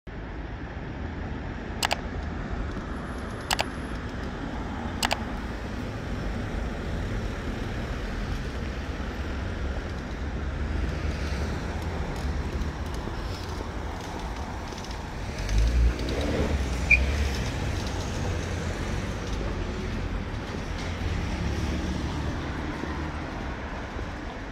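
City street ambience: a steady low rumble of traffic, with three sharp clicks in the first five seconds and a brief high beep about two-thirds of the way through.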